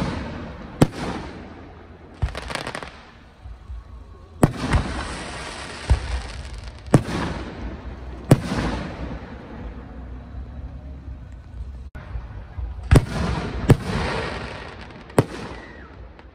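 Aerial firework shells bursting overhead: about nine sharp bangs a second or two apart, each trailing off into a crackling hiss, with a lull of a few seconds after the middle before more bangs near the end.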